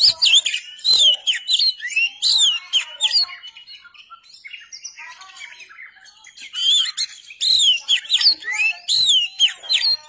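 Oriental magpie-robin (kacer) singing: two bouts of fast, varied sweeping notes, the first at the start and the second from about six and a half seconds in, with a quieter pause between them.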